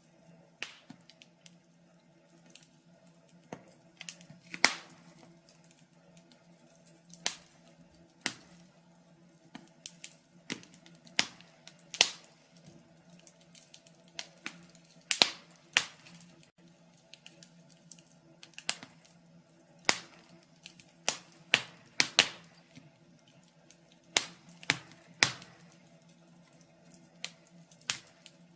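Wood fire crackling, with irregular sharp pops and snaps, a few louder than the rest, over a faint steady low hum.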